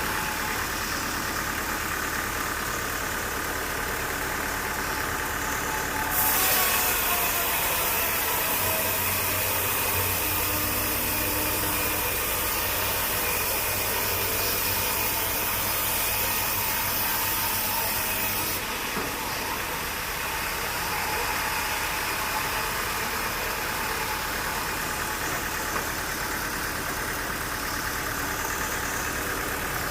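Sawmill machinery engine running steadily. About six seconds in, a louder hissing noise joins it with a deeper hum, and both stop together about eighteen seconds in.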